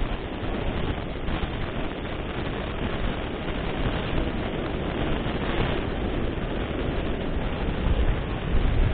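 Ocean surf washing and breaking on the beach, a steady rush with wind buffeting the microphone, swelling a little near the end.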